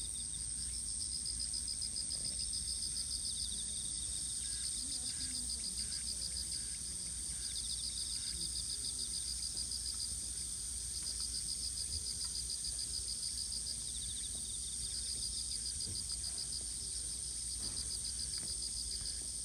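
Insects singing in summer grass. One gives a continuous high-pitched buzz, while another's pulsing trill repeats in bouts of a few seconds with short gaps.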